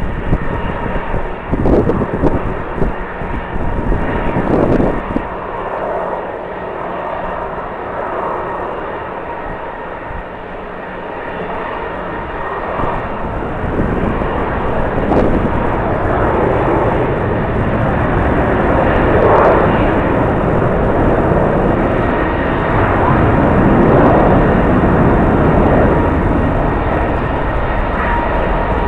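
Jet airliner engines roaring, the sound building and growing louder through the second half. Gusts of strong wind buffet the microphone in the first few seconds.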